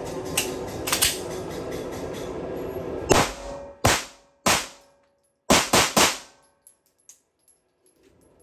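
Custom 9mm Glock 19 pistol firing six rounds of light, fast 50-grain Pilgrim Torch ammunition into a bullet trap: three spaced shots, then three in quick succession, each with a short echo.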